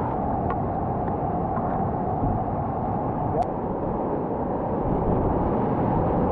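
Steady rushing of fast river water, an even noise with no let-up.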